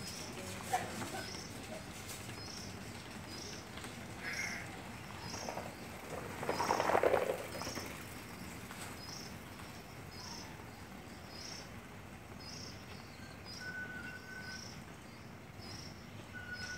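A short, high chirp repeating steadily about twice a second, from a small animal. A louder, harsh sound lasting about a second comes about seven seconds in, and a brief whistled note near the end.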